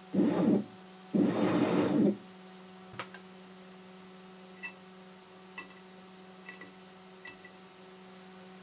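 A home-built 3D printer's stepper motors buzz through two short moves in the first two seconds. After that the machine gives a steady electrical hum, with one click and a few faint ticks as the print is taken off the bed by hand.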